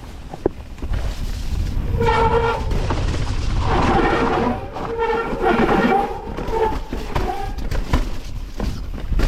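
Mountain bike disc brakes squealing in several held, horn-like bursts of half a second to a second each, over rumbling wind and trail noise.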